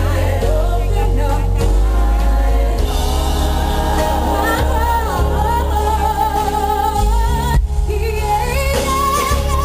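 Live gospel music: a band with a heavy bass line under a singer's bending, wavering melodic runs, with a brief break about three-quarters of the way through.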